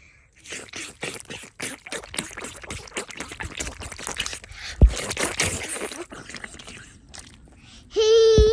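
Water splashing and dripping as wet hands rub and scrub a muddy face under a thin poured stream, with one louder wet slap about five seconds in. A high held vocal note starts near the end.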